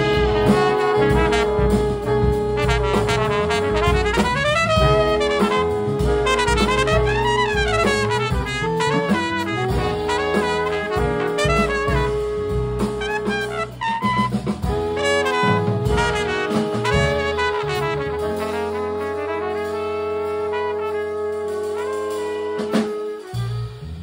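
Jazz combo playing: saxophones, trumpet and trombone over drums and bass. Near the end the bass and drums drop out and the horns hold a long chord that cuts off, closing the tune.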